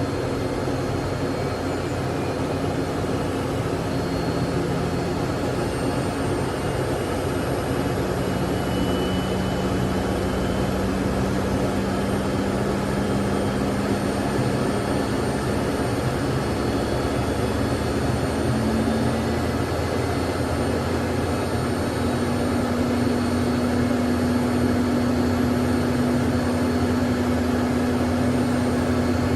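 Learjet jet engines running at idle, heard inside the cabin: a steady rushing whine with a low hum that steps up slightly in pitch twice.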